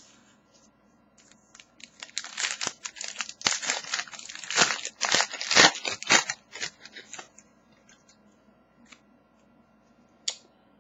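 Trading card pack packaging being torn open and crinkled by hand: a dense, irregular crackling from about two seconds in to about seven seconds in, then a single sharp click near the end.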